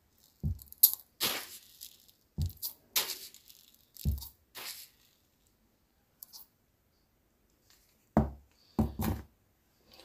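Scattered short knocks and rustles: about five dull knocks mixed with lighter clicks, and a quiet stretch of a few seconds past the middle.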